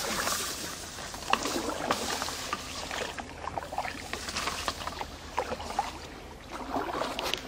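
Canoe paddles dipping and pulling through calm water, with splashes, drips off the blades and a few short sharp clicks along the way.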